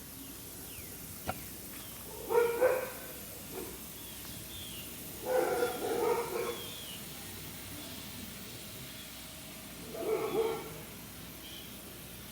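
A dog barking in three short bouts: a couple of barks about two seconds in, a run of several barks around five to six seconds, and another couple about ten seconds in.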